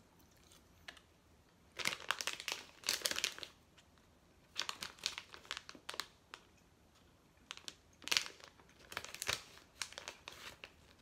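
Plastic snack pouch crinkling as it is handled, in three bouts of rustling a second or more long.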